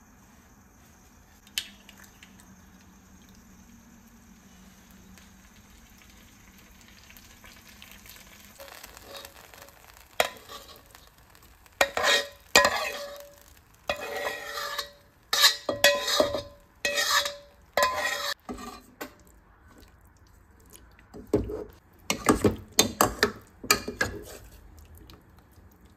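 A metal spatula scrapes fried tomato sauce out of a wok into a stainless steel pot, in a series of scraping strokes with a ringing metal tone, starting about eight seconds in. Near the end, a metal spoon stirs beans and cassava in the pot with quick clattering strokes.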